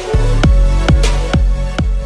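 Electronic background music with a steady kick drum, about two beats a second.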